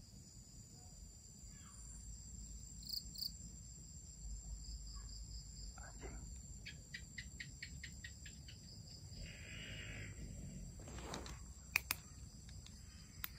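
Crickets and other night insects calling in steady high tones. About halfway through, a quick run of a dozen or so ticks comes and goes, and near the end there are a couple of sharp clicks.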